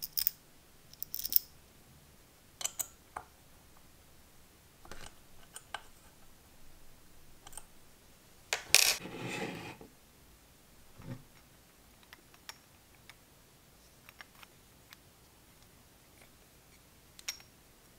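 Small metal model-engine parts handled by hand: scattered clicks and light metallic knocks, with a louder clattering rattle lasting about a second near the middle.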